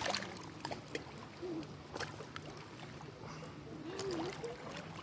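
Small waves lapping and splashing against the lakeshore, a splash every couple of seconds, with faint distant voices.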